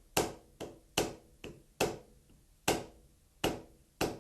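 A hammer knocking the head of a milling machine to nudge it into tram: about eight sharp taps at uneven intervals, each with a brief ring.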